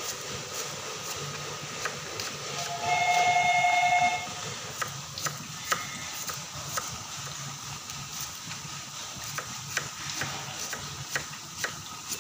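Sliced Sumenep onions deep-frying in a wok of hot oil: a steady sizzle with scattered small pops. About three seconds in, a steady whistle-like tone sounds for just over a second.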